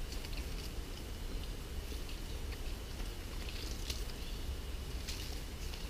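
Faint crunching as a man bites and chews the raw, crisp heart of a spiny-headed mat rush (Lomandra longifolia) leaf base, over a steady low rumble.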